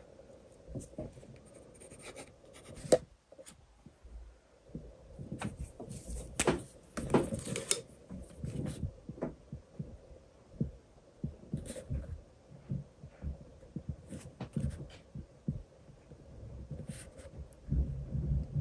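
Short scratches and light taps of a pencil and then a white pen working on sketchbook paper, with small handling knocks. There is a sharp click about three seconds in, and a busier stretch of scratching a few seconds later.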